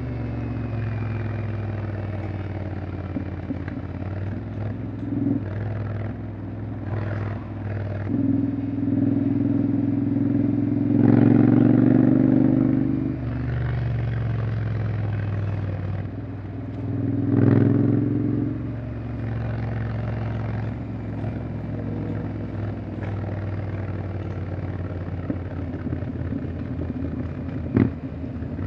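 Honda X-ADV 750's parallel-twin engine running under way at a steady pace, swelling louder and higher twice as the throttle is opened, about eleven seconds in and again near eighteen seconds. A short sharp click near the end.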